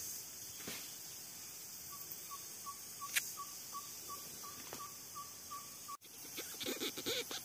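A bird calling a long series of short, even notes, about three a second, for some four seconds, over faint forest background. The sound cuts off suddenly about six seconds in, and a jumble of knocks and rustles follows near the end.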